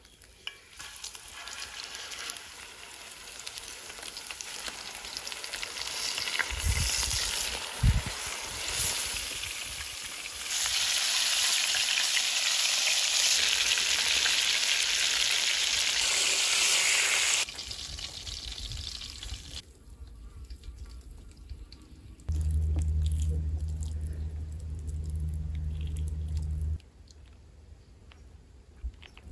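Flour-coated crucian carp frying in hot oil in a pan, a steady sizzle that builds up and is loudest through the middle. Later a low steady hum runs for about four seconds.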